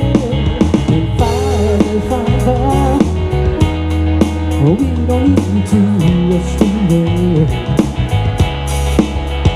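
Live one-man-band music through a PA: a guitar-style instrument played over a backing track with a steady drum beat and bass, with a voice singing in places.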